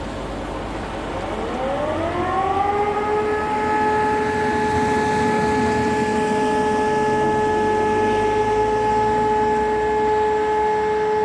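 E57 electromechanical fire siren, heard from about 400 m away, winding up with a rising howl from about a second in and settling into a steady tone by about three seconds in. This is the "Feueralarm" signal of a monthly siren test.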